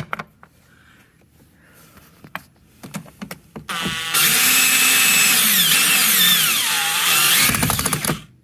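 Electric screwdriver driving a machine screw into the air filter box lid. A few light clicks come first, then about four seconds in the motor starts and runs loudly for about four seconds, its pitch dipping and rising before it stops.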